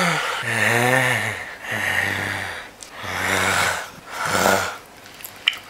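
A man making four drawn-out, low, breathy groans in a row, each about a second long, with short pauses between them. A couple of faint clicks follow near the end.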